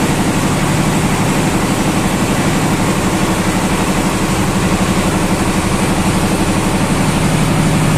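An engine running steadily at idle, a low hum with a fast, even pulse.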